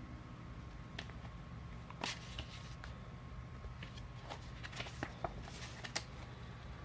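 Paper leaflets and cardstock cards being handled and flicked through by hand: scattered short rustles and crisp snaps, one about two seconds in and several more close together near the end, over a steady low hum.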